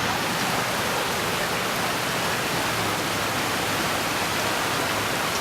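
Water rushing from a ruptured water main, a steady, even roar of flowing water.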